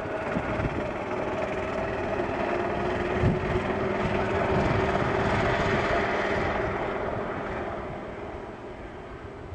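Golf cart running along a road, a steady motor drone with a low hum, easing off after about seven seconds.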